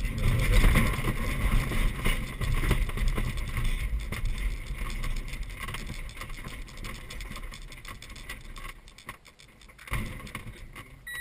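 ASK-21 glider's ground roll on a grass airfield, heard from inside the cockpit: the main wheel rumbles and knocks over the turf with airflow noise, fading steadily as the glider slows to a stop. A single short thump comes near the end.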